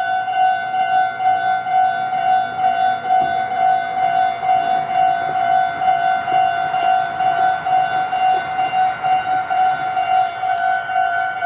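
Japanese railroad crossing's electronic warning bell ringing its repeated "kan-kan" tone, about two to three strokes a second, signalling that a train is approaching.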